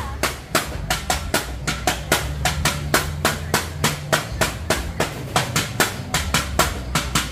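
A cook's utensil knocking repeatedly at an even, quick pace of about three to four strikes a second, in food preparation at a street-food stall, over a low steady hum.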